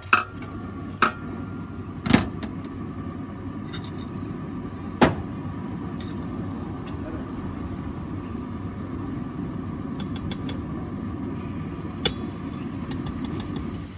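A metal spatula knocks and scrapes on a large flat iron griddle, with several sharp clanks, the loudest about two and five seconds in and another near the end. A steady low rumble runs underneath.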